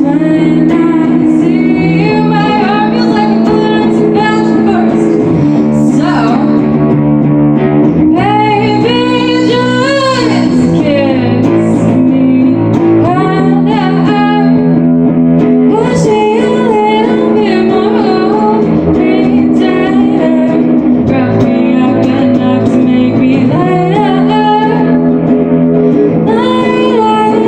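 A live band song: a singer's melodic vocals over held guitar chords, the singing dropping out briefly a few times and coming back.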